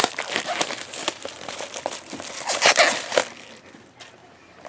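Funko Mystery Minis blind-box packaging being handled and opened: crinkling and rustling with small crackles, loudest around three seconds in, then dropping to a faint rustle.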